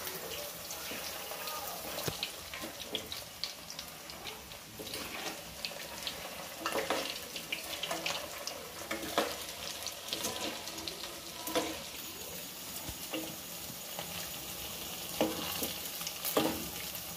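Chira pitha balls deep-frying in hot oil in a kadai: a steady sizzle full of small crackles and pops, with a few sharper knocks of a metal spatula against the pan as the balls are turned.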